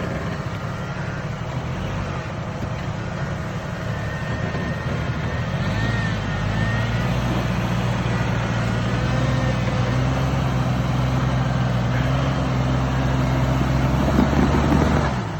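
Off-road vehicle's engine working at low speed as it crawls over a trail obstacle; its note rises about five seconds in as the driver gives more throttle, holds steady, then drops back near the end.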